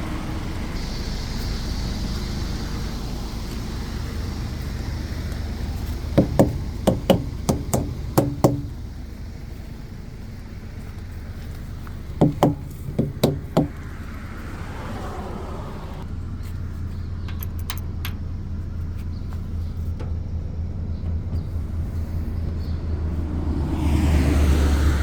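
Truck engine running steadily, heard from inside the cab, with two short runs of sharp clicks or knocks about a quarter and about halfway through. The engine grows louder near the end.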